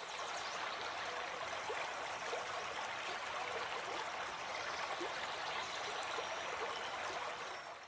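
Stream water rushing steadily, with small gurgles through it; the stream is running high with floodwater.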